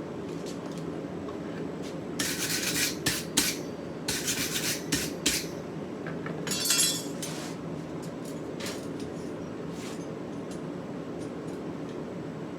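Metalwork at a blacksmith's anvil during forging: several short bursts of metallic clinking and scraping between about two and seven seconds in, over a steady low rumble.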